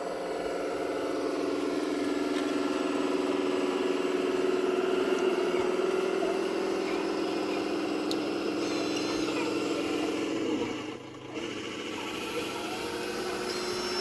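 Radio-controlled construction model running with a steady motor hum. It cuts out briefly about three-quarters of the way through, then starts again.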